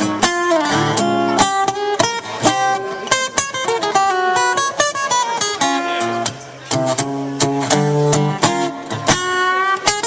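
Live acoustic guitar playing an instrumental break in a song, with quickly picked single notes over strummed chords.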